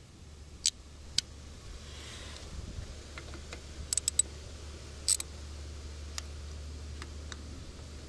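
Sharp metallic clicks of a small hand ratchet and socket on a spool-cap bolt of a backhoe control valve body: scattered single clicks, with a quick run of three about four seconds in and a double click about a second later. A low steady hum sits underneath.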